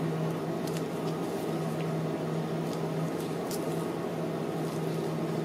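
Steady low machine-like hum with one constant tone, with a few faint light ticks over it.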